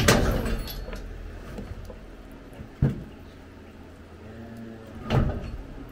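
Knocks and clatter of a Highland cow jerking its head and shifting in a metal head chute, with a sharp single knock about three seconds in and another loud bump just after five seconds.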